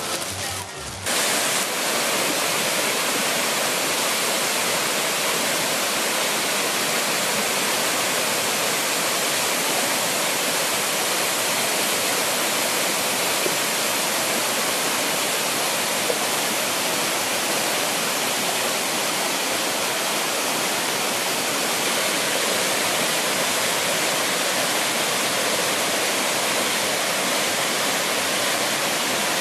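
Swollen, muddy floodwater rushing past in a steady, even roar.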